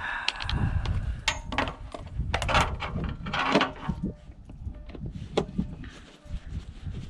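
Irregular clicks, knocks and scrapes of hands and tools handling an old generator that will not run, with crunching noise between the knocks.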